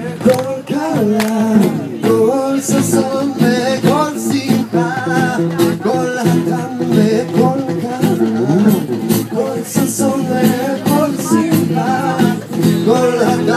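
Live Jewish folk song: a man singing into a microphone with acoustic guitar accompaniment, amplified through a speaker.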